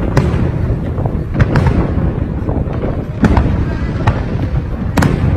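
Aerial fireworks bursting: a continuous low rumble of booms and crackle, broken by several sharp bangs, the loudest near the end.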